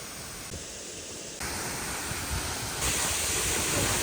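Youngs River Falls: a steady rush of falling water. It gets louder in two steps, about a third of the way in and again past halfway.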